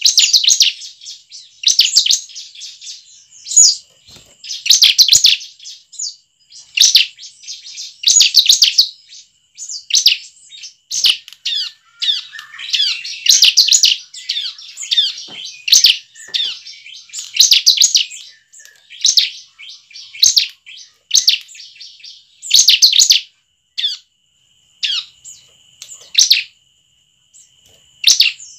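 Bar-winged prinia (ciblek) singing: repeated bursts of rapid, high chirping trills about once a second, with a faint steady high whine underneath.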